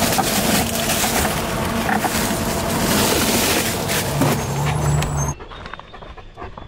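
Loud, steady machinery noise with a low hum, and a few knocks and rustles as bagged ice is handled at an ice freezer. The noise cuts off abruptly about five seconds in, leaving much quieter outdoor sound.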